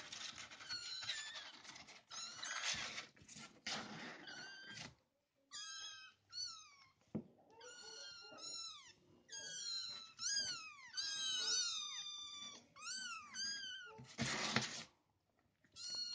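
Four-week-old kittens mewing: many high, thin calls that fall in pitch, coming in quick succession and often overlapping from about five seconds in. Before that, and again briefly near the end, there is scratching and rustling as they claw at the cardboard walls and the paper lining of their box.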